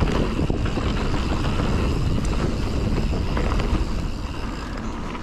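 Mountain bike ridden on a dirt trail, heard on the action camera's microphone: gusty wind buffeting over tyre rumble, with small scattered rattles and clicks from the bike.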